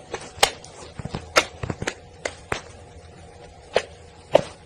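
Baby rabbit lapping water from a bowl: irregular, sharp, wet clicks, sometimes in quick runs of two or three, with short pauses between.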